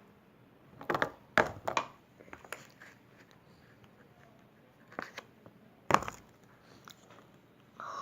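Handling sounds while liquid detergent is added to slime: a few sharp clicks and taps, a quick cluster about a second in and two more around five and six seconds, likely from the detergent bottle's cap and the container.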